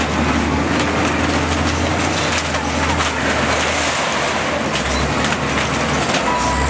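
FL956H wheel loader's diesel engine running while its bucket crushes a wooden and sheet-metal stall, with repeated crashing and wood splintering. A reversing beep starts near the end.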